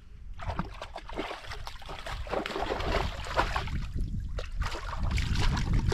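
Shallow lake water splashing and sloshing at a rocky edge as a dog wades in it, irregular and getting louder, over a low rumble of wind on the microphone.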